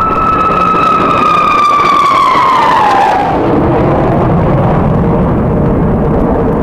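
Jet fighter engines passing low overhead. A loud high whine falls steeply in pitch about two to three seconds in as the jets go by, leaving a deep steady rumble.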